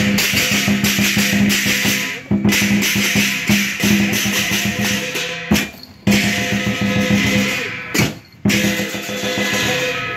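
Chinese lion dance percussion: a drum beaten in fast strokes with crashing cymbals. It breaks off briefly three times and starts up again.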